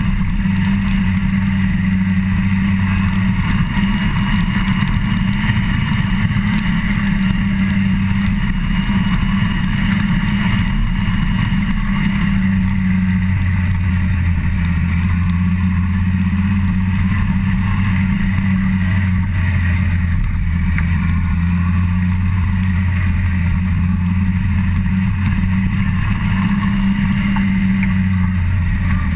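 Yamaha FZ1 motorcycle's inline-four engine running at steady cruising revs, with slight shifts in pitch about twelve seconds in and again near the end.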